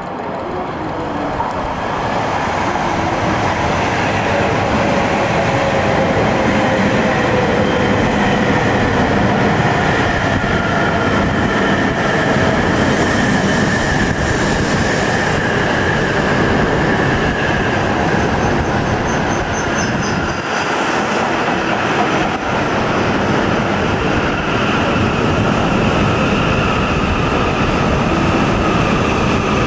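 Coupled E5 and E6 series Shinkansen train pulling into the platform and slowing: a loud, steady rush of wheels and air, swelling over the first couple of seconds, with whining motor tones that slowly fall in pitch. A thin high squeal comes in about two-thirds of the way through.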